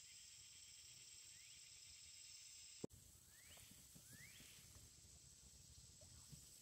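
Quiet swamp ambience: a faint, steady, high-pitched insect drone with a few soft rising chirps. A single sharp click comes a little under three seconds in.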